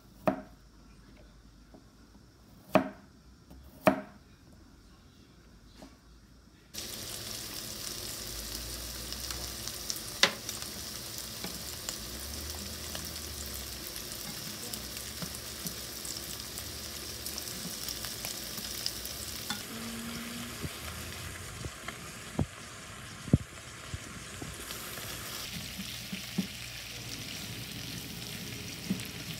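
A knife cutting garlic cloves on a wooden cutting board, three sharp chops in the first few seconds. Then pork belly frying in a pan, a steady sizzle with occasional knocks and clicks of tongs as it is stirred with onion and garlic.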